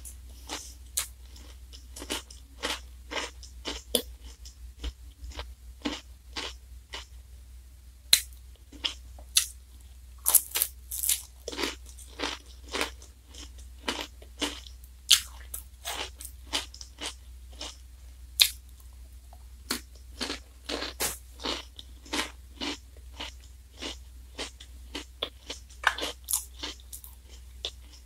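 Biting and chewing a Glico Wings J-Cone ice cream in a black wafer cone: irregular sharp crunches of the cone, several a second at times, between quieter chewing.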